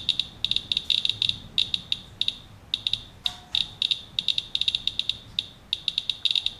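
Handheld Geiger counter (Inspector radiation monitor) chirping once for each detected count: a rapid, irregular stream of short high beeps, many a second, bunching in clusters with brief gaps. The fast rate shows an elevated reading from a paper-towel wipe of radioactive rain residue.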